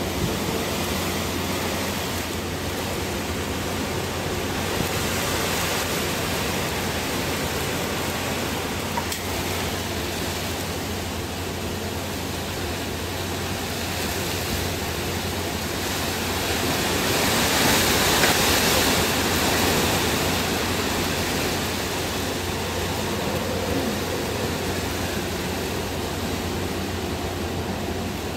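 Tropical storm wind and rain making a steady rushing noise. It swells into a stronger gust about 17 seconds in and eases again a few seconds later.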